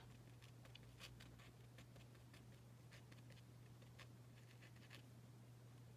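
Faint, irregular taps and scratches of a paint marker tip dabbing short strokes onto paper, over a low steady hum.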